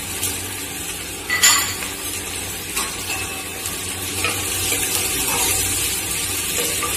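Chopped small onions and green chillies sizzling steadily in hot coconut oil in a clay pot, stirred by a wooden spatula that scrapes against the pot, with one sharper knock about one and a half seconds in.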